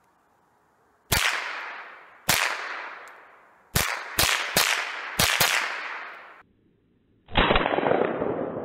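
Remington 597 semi-automatic .22 LR rifle firing about eight shots, each followed by a fading echo. Two single shots come about a second apart, then a quick string of five, then one more near the end.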